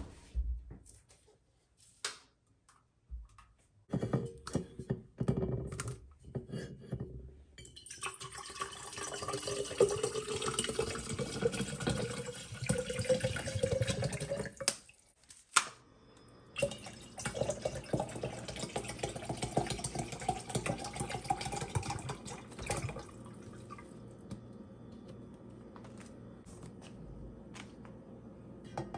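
Water poured from a plastic water bottle into a tall insulated tumbler in two long pours, the pitch of each pour rising as the tumbler fills. A few knocks and clicks of bottles being handled come first.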